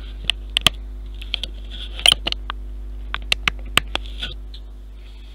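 Irregular sharp little clicks and rustles from fingers handling and twisting a length of model-ship rigging thread close to the microphone, over a steady low hum.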